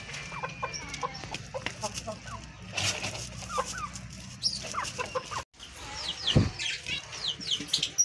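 Hens clucking in short calls. After a sudden break about five and a half seconds in, caged lovebirds give a run of quick high chirps that fall in pitch, with one dull thump among them.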